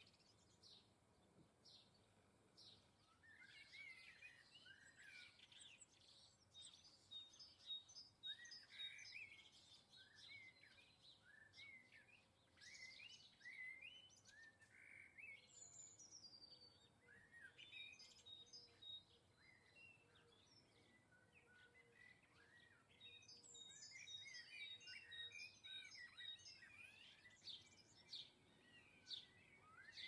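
Faint garden songbirds chirping and twittering, a steady run of short calls and quick trills, busiest in the middle and again near the end.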